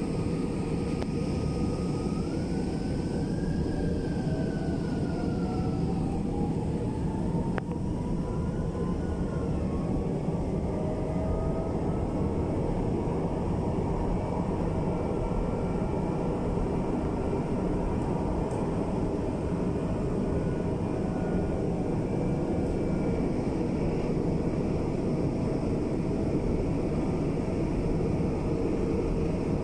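Cabin noise inside a moving MRT-3 light-rail carriage: a steady rumble of the train running along the elevated track. A faint whine glides up in pitch during the first dozen seconds.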